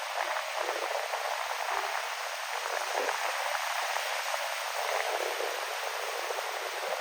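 Ocean waves washing in with wind: a steady rushing hiss with no single crash standing out and no low rumble.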